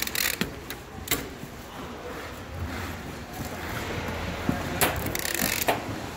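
Plastic wipe canisters and cardboard trays being handled on a packing line: a few sharp knocks as canisters are set down, and a short scraping rush near the end.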